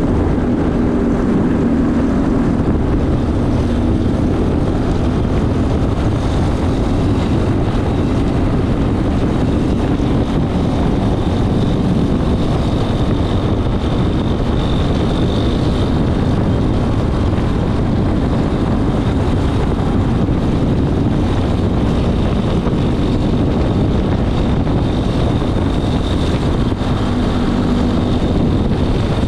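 Racing go-kart engine running hard under load, its note rising and falling a little, mixed with heavy wind noise on an onboard microphone.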